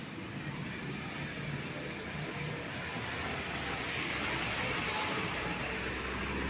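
Street traffic noise, a vehicle passing and growing a little louder around the middle, with a low hum coming in near the end.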